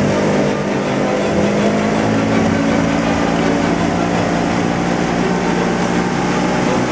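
Motorboat's 115-horsepower engine running steadily under way, with a steady hiss of water and wind over it.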